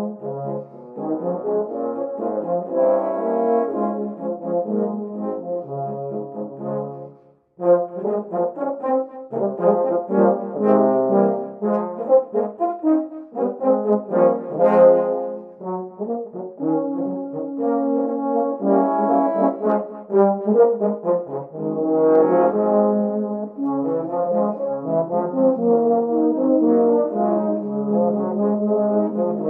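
A multitracked brass ensemble of overdubbed tenor horns playing a march, with a brief break about seven and a half seconds in before the parts come back together.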